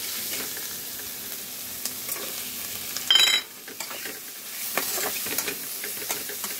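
Boiled potatoes and ground spices being stirred and fried in a little hot oil in an aluminium kadhai: a low sizzle with repeated scraping strokes of the spatula against the pan. About three seconds in comes one brief, loud metallic clang.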